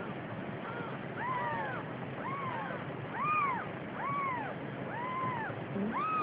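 Newborn Siamese kittens mewing: short, high cries that rise and fall in pitch, about one a second.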